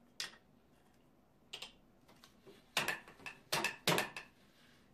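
Wooden clacks and knocks of a jibata, a Japanese ground loom, worked by hand: a single knock near the start, another about a second and a half in, then a quick run of louder clacks in the second half as the reed frame is pulled in to beat the weft.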